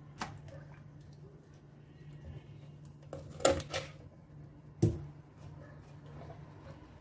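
Kitchen knife cutting the head off a small common pandora fish on a wooden cutting board: a cluster of sharp cutting clicks about three and a half seconds in, then a hard knock of the blade on the board near five seconds.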